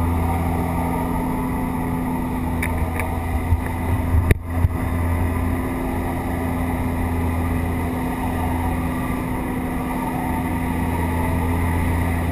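Steady drone of a skydiving jump plane's engine and propeller heard inside the cabin, with rushing air from the open door. A few knocks and a brief dropout come about four seconds in.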